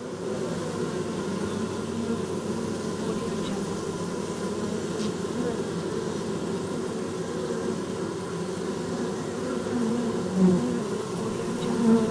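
Many bees buzzing steadily, several overlapping drones at once, swelling louder about ten seconds in and again near the end.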